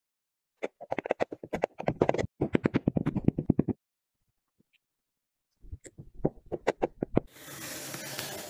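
Kinetic sand crackling and crunching as it is pressed and crushed, in two runs of rapid crackles with a pause between them. Near the end, a steady hissing scrape as a metal scraper shaves a layer off a mould of packed kinetic sand.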